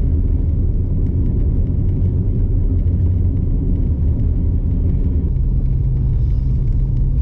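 Steady low road and engine rumble of a vehicle being driven, heard from inside the cabin, with a drone that steps up in pitch about five seconds in.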